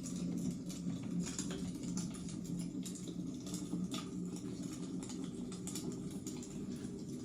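Wood fire burning in a fireplace, crackling with irregular small pops over a steady low rumble of flame.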